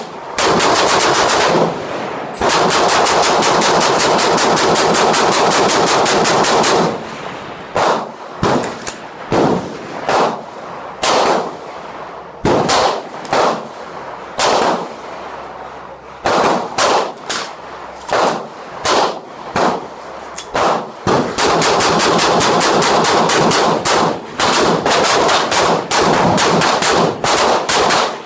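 Gunfire at a shooting range, shot after shot. It comes in dense, rapid runs for the first seven seconds or so and again in the last seven, with separate shots spaced apart in the middle.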